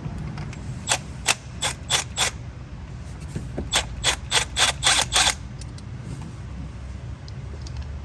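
Hand ratchet clicking in two runs of sharp clicks, about five and then about eight, while a spark plug is worked out of the cylinder head. A steady low hum runs underneath.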